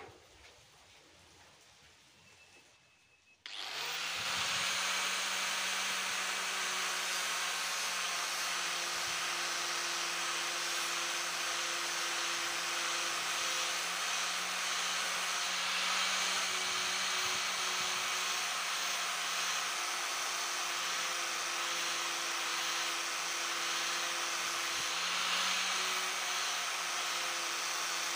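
Angle grinder with a sanding disc on a rubber backing pad, starting abruptly about three and a half seconds in and then running steadily while it sands the steel of a knife blank, with a steady motor whine under the grinding noise.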